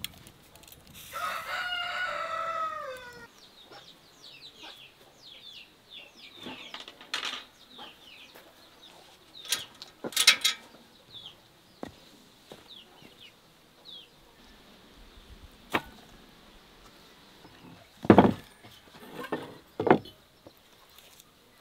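A rooster crows once, a call of about two seconds that drops in pitch at the end, followed by small birds chirping. Later come a few sharp knocks, the loudest of them near the end.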